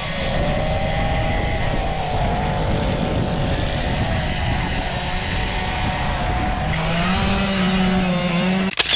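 Chainsaws running at wavering speeds as carvers cut into wood, with wind rumbling on the microphone. About seven seconds in, a lower, steadier saw engine note comes in, and the sound cuts off abruptly at the end.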